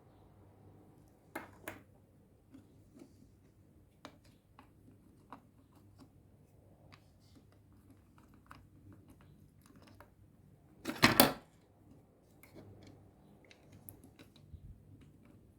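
Small door lock actuator parts handled and fitted by hand: scattered faint clicks and taps, with a short louder clatter of clicks about eleven seconds in.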